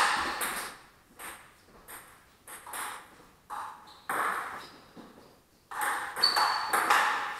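Table tennis ball clicking off rubber paddles and bouncing on the table in rallies, each hit with a short ringing echo. The hits come thick and fast at the start and again near the end, with sparser single clicks between them.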